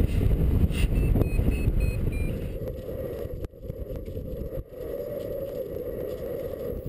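Wind buffeting the microphone in flight, with a quick run of five short high electronic beeps about a second in, typical of a paraglider's variometer. The wind noise drops after about two and a half seconds.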